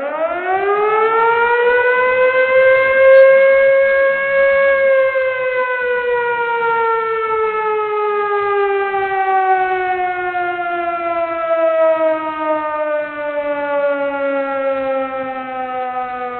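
Civil defense siren sounding one long wail: the pitch winds up over about four seconds, then slowly winds down through the rest of the cycle.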